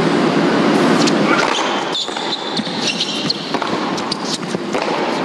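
Arena crowd noise after a point dies down, followed by short sharp ticks of a tennis ball being bounced on the court by the server before his serve.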